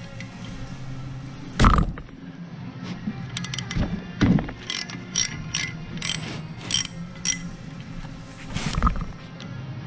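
Hand tools working on metal brake parts: three heavier knocks, and between them a run of sharp, ringing metal clicks about two a second, over a steady low hum.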